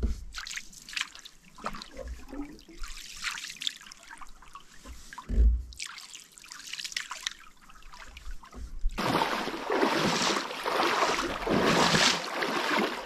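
Canoe paddle strokes in a slow creek: water trickling and dripping off the blade with light splashes, and a single low knock about halfway through. About nine seconds in it gives way to a steadier, louder rush of water.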